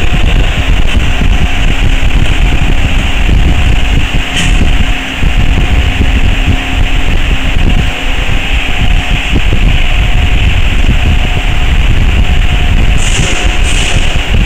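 Steady mechanical running noise of an automatic through-hole component insertion machine, with a heavy low rumble and a faint steady hum.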